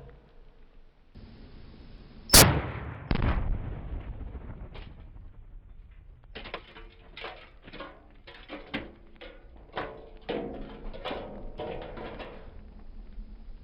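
A rifle shot, one sharp crack, followed a moment later by the heavier boom of about a pound of Tannerite detonating, with a low rumble that dies away. Several seconds of irregular short sounds follow later on.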